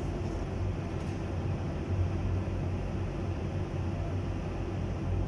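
Steady low drone of a running engine, even throughout with no clear changes.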